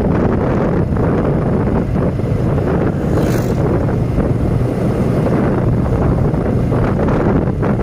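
Loud, steady wind buffeting the microphone of a moving motorcycle, with the motorcycle's engine running steadily underneath.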